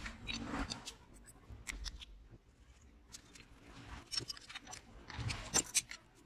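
Clicks and scrapes of metal parts being handled by gloved hands: a lawn mower's steel drive shaft and helical gear being fitted into the small drive gearbox housing. The handling noises are scattered, with a louder burst of scraping and clicking near the end.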